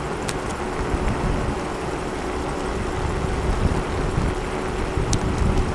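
E-scooter rolling along an asphalt road: wind buffeting the action camera's microphone over tyre rumble, with a steady hum and two sharp ticks, one shortly after the start and one near the end.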